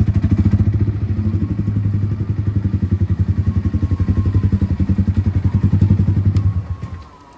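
Yamaha R15 single-cylinder motorcycle engine with a changed, loud aftermarket exhaust, running at low revs with an even pulsing beat as the bike rolls slowly. The engine sound cuts out near the end.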